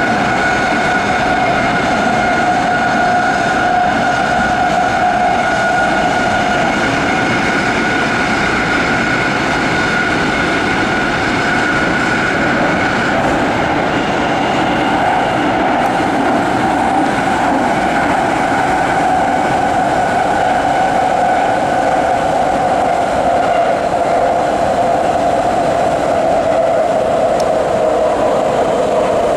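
BART train running at speed, heard from inside the passenger car: a steady rumble of wheels on rail under a loud, steady whine that wavers and sinks slightly in pitch near the end.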